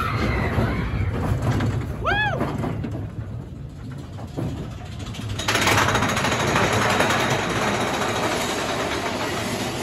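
Mine-train roller coaster rumbling along its track. One short, high rising-and-falling whoop from a rider comes about two seconds in. About halfway through, a loud steady hiss starts suddenly and becomes the loudest sound.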